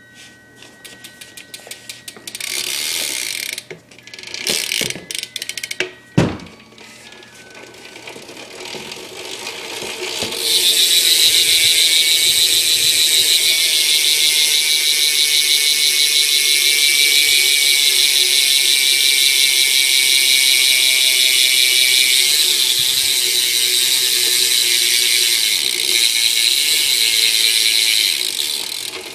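BMX rear hub (Odyssey V3) freewheeling: scattered clicks and a single knock about six seconds in, then from about ten seconds the wheel spins fast and the pawls ratchet in a loud, rapid, steady buzz that eases off near the end.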